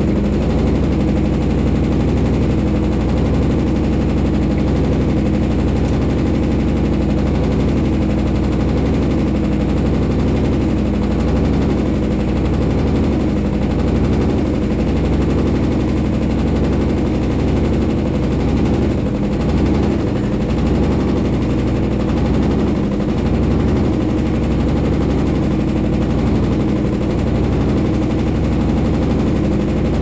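Consul 16 kg top-load washing machine on its spin cycle, the loaded basket spinning at speed: a loud, steady low drone.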